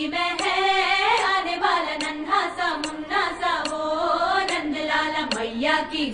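Song on the soundtrack: a voice singing a sliding, ornamented melody over music.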